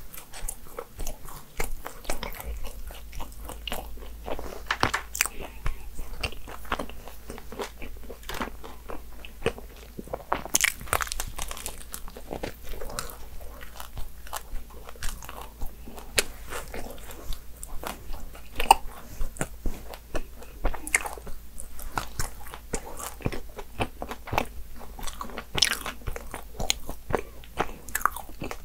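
A person biting into and chewing a brownie chocolat croissant. The crisp, flaky pastry crunches in many short, sharp crackles between quieter chewing.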